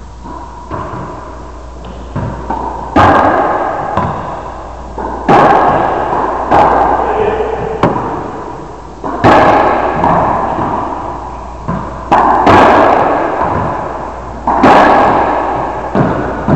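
Racquetball rally: the hollow rubber ball cracking off racquets and the court walls, about a dozen sharp hits one to two seconds apart, each followed by a long booming echo in the enclosed court.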